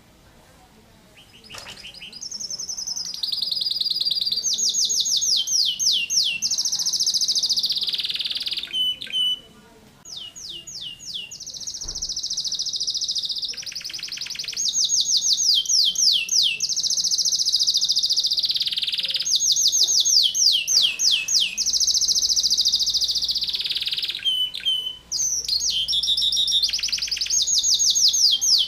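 Domestic canary singing vigorously in long runs of rapid trills and fast-repeated sweeping notes, the tight 'shot' bursts prized in a canary's song. It starts about a second and a half in, with a short break about a third of the way through and another brief one near the end.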